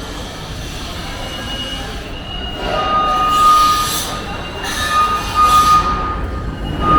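High-pitched metallic squealing that comes and goes in steady held tones, with bursts of hiss, over a steady rumble; it grows louder about halfway through.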